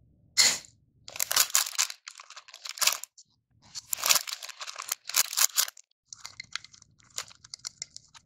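Clear plastic packaging of a cup of jelly candies crinkling and crackling as it is handled, in a series of short rustling bursts, with smaller crackles near the end.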